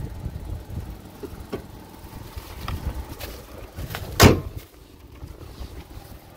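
The bonnet of a Mitsubishi Pajero iO is slammed shut with one sharp metal bang about four seconds in. A few light knocks and rattles come before it as the bonnet is handled.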